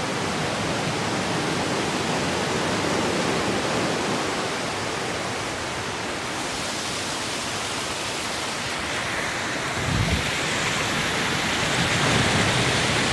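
Steady rushing of water from a rocky creek and waterfall. A brief low bump about ten seconds in.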